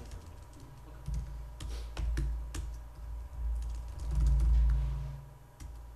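Typing on a laptop keyboard: scattered key clicks as terminal commands are entered, with a louder low rumble about four seconds in.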